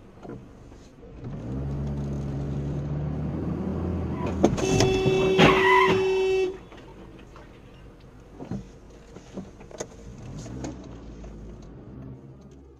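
A car horn blows one long, steady blast of about two seconds near the middle, over the running of a car engine. Quieter road noise with a few short knocks follows.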